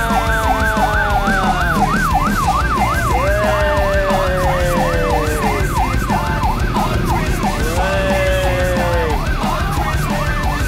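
Police vehicle's electronic siren on a fast yelp, sweeping up and down about three times a second, with a slower wailing tone that rises and falls three times over it.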